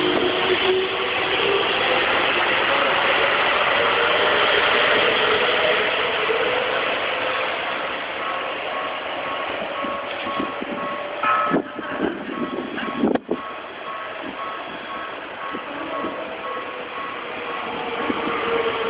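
Keikyu 2100-series train with a Siemens GTO VVVF inverter accelerating away, its traction-motor whine gliding slowly upward as the train noise fades. From about halfway through a repeating electronic beep sounds, with two short knocks soon after. Near the end the rumble of another approaching train rises.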